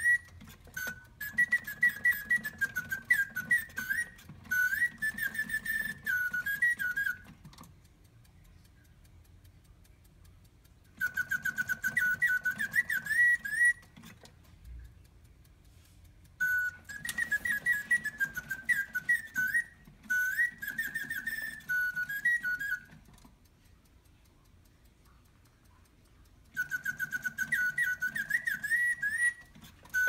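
Reuge mechanical singing-bird automaton whistling warbled birdsong through its bellows-driven bird whistle, in four bursts of several seconds with pauses of a few seconds between them. A low whir of the mechanism runs under each burst.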